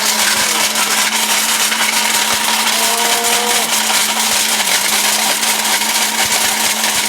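Electric blender with a steel drive bushing running at full speed, grinding hard dried turmeric root to powder. It makes a loud, steady grinding noise over a constant motor hum.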